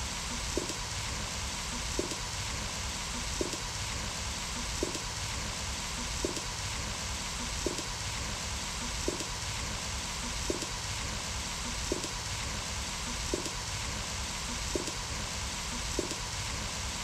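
Mutton curry boiling in an iron kadai over a fire, a steady bubbling hiss, with a faint tick repeating about every second and a half.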